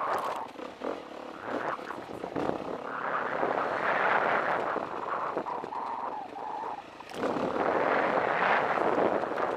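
KTM 350 EXC dirt bike's single-cylinder four-stroke engine running along a trail, mixed with wind rushing over the helmet-mounted microphone. The sound eases off briefly twice and picks back up sharply about seven seconds in.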